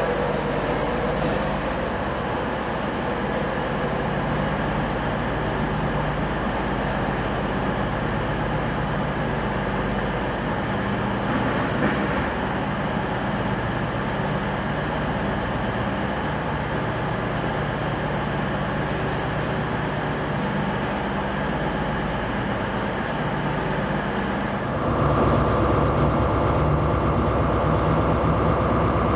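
Steady rumble and hum of trains in a station as a Class 91 electric locomotive-hauled InterCity 225 slowly runs in. About 25 seconds in it gives way to a louder, steady diesel drone with a high whine from a CrossCountry Class 220/221 Voyager diesel multiple unit.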